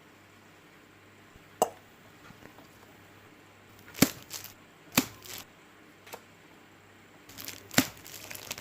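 Several sharp, separate clicks and knocks of hard plastic from handling a freshly assembled Neutrik speakON loudspeaker plug.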